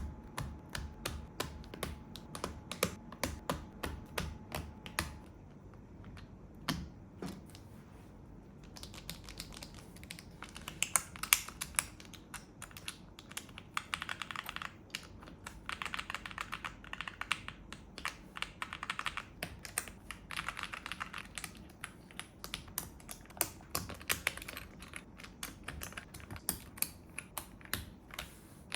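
Mechanical keyboard with Akko V3 Cream Yellow linear switches (no tactile bump, POM stems) being typed on. Separate keystrokes come first, then fast, continuous typing from about nine seconds in.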